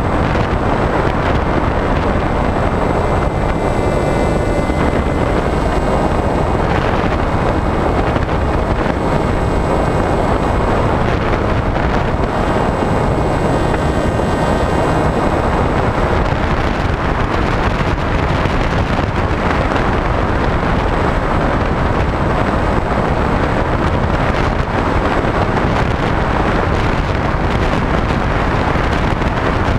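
Wind rushing hard over the onboard camera's microphone of a HobbyKing SkyEye FPV plane in flight, with the electric motor and propeller whining faintly underneath, most clearly in the first half.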